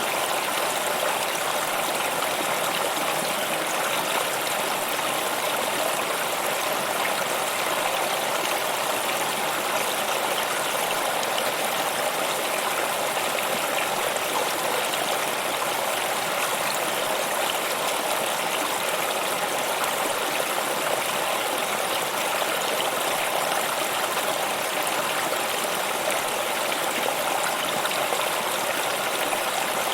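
Water in a stream running steadily, an even rushing babble with no breaks or changes.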